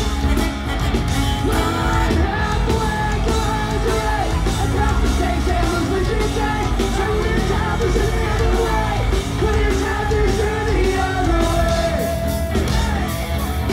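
Live punk rock band playing loudly, with singing over electric guitar, bass and drums, heard from inside the crowd.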